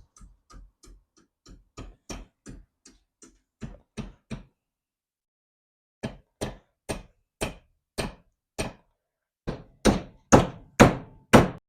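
Hammer strikes on a car door hinge being rebuilt: a run of light taps about three a second, a short pause about four and a half seconds in, then a second run of strikes that grow harder toward the end.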